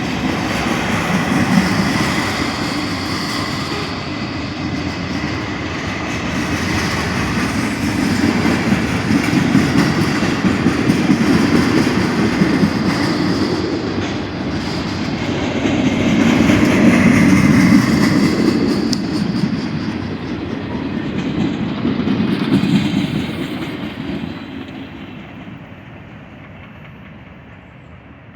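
A train running, a steady rumble and rattle that swells and eases, then fades away over the last few seconds.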